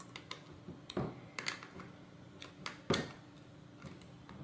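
Small clicks and taps of a screwdriver turning a bolt under a spacer on a robot-car chassis, with one louder knock about three seconds in.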